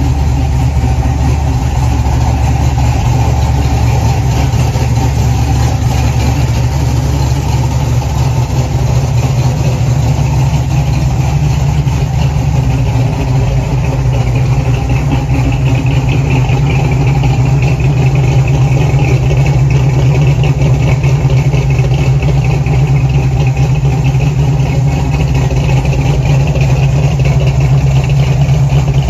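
1969 Chevrolet Camaro's 383 stroker V8 idling steadily with a low, even rumble.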